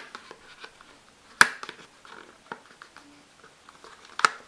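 Handling noises of small objects: a few sharp clicks and knocks, the loudest about a second and a half in and another near the end, with light ticking and tapping between.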